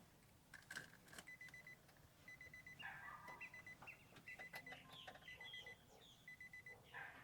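Faint rapid electronic beeping in short bursts, about one burst a second: a car's warning chime before the engine is started, with a few scattered clicks and faint chirps.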